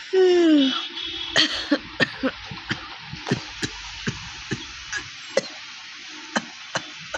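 A person's dry coughing: one longer voiced cough falling in pitch, then a string of short, sharp dry coughs, two or three a second at first and more spaced out near the end.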